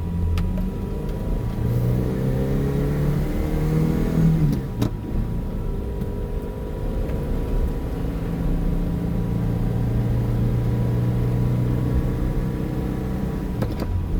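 Car engine accelerating, heard from inside the cabin: the engine note climbs for about five seconds, drops with a sharp click as it shifts up, then climbs again more slowly.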